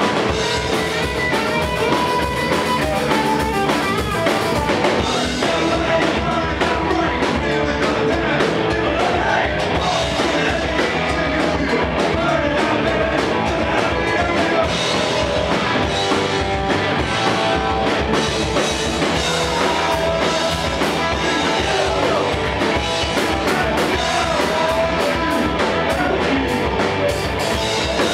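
A rock band playing live at full volume: electric guitar, bass guitar and drum kit in a fast, driving punk rock-and-roll song.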